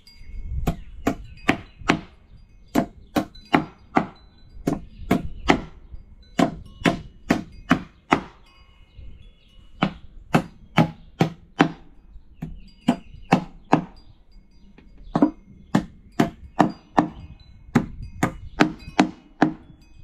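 Hammer driving nails into a wooden beehive box: a long series of sharp blows, about two to three a second, in runs with short pauses between.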